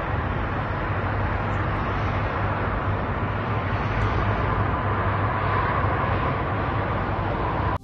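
Steady rushing roar of outdoor city noise, with a low hum underneath.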